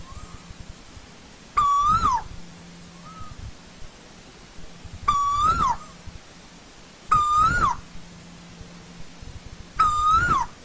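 Asian koel (tu hú) calling: four loud calls two to three seconds apart, each a short held note that lifts, then drops away. Fainter calls sound in between.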